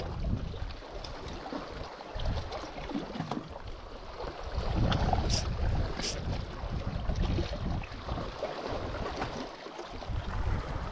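Wind buffeting the microphone over sea water washing against shore rocks, a rumbling, uneven noise that swells about halfway through. Two sharp clicks come close together about halfway through.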